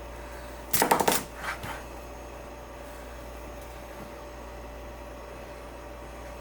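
Knife chopping broccoli on a cutting board: a quick cluster of strokes about a second in, then a couple of lighter ones. A steady hum runs underneath.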